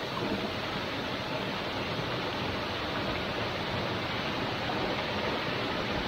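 Lumb Falls, a small moorland waterfall, rushing steadily: an even, unbroken hiss of falling water.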